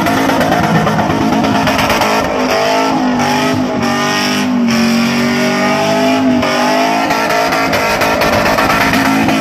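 Modified sedan's engine revving hard under wheelspin while it spins donuts on a wet surface, with tyre noise. The revs sag a couple of seconds in, hold lower through the middle, then climb again near the end.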